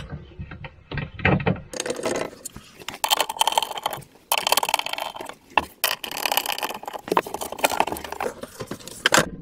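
Power screwdriver running in three bursts, with short pauses between, as it drives the hinge screws out of a cabinet door. A few faint handling clicks come before the first burst.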